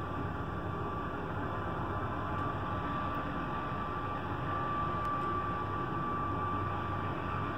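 Helicopter flying at a distance: a steady drone with a thin, steady high whine over it.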